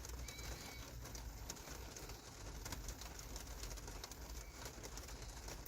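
Quiet background with a steady faint low hum, a few soft ticks and a bird calling faintly.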